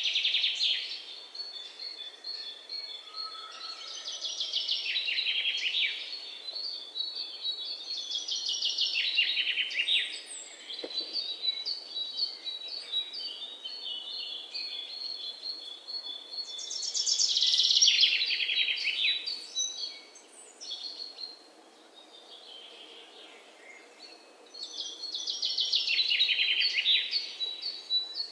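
Songbirds singing: loud bursts of fast trilled song, each two or three seconds long and falling in pitch, come back every few seconds over a thin string of quick high chirps.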